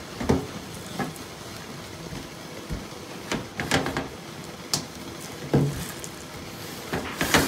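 A wooden spoon turning and pressing a mound of steamed sticky rice on a cloth over a stainless steel draining board, giving about ten light, irregular knocks and scrapes.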